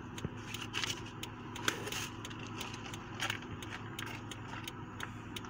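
Light clicking and rustling of things being handled and set down inside a car, with a few sharper clicks, over a steady low hum.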